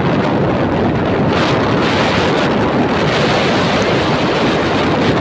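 Wind buffeting the microphone on a moving motorcycle: a loud, steady rushing noise.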